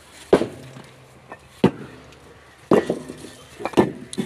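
Fired clay bricks knocking together as they are handled and stacked: about five sharp clinks, roughly one a second, some with a short ring after them.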